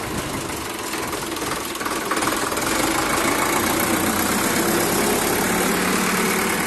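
Sonalika DI 750 III tractor's diesel engine running steadily, growing louder about two seconds in.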